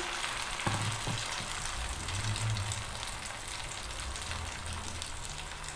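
Egg omelette batter frying in hot oil in a nonstick pan, a steady sizzle with a fine, continuous crackle.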